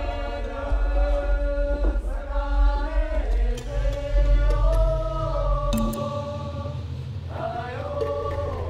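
Soundtrack music: chanted voices holding long notes over a low bass drone that changes note a few times.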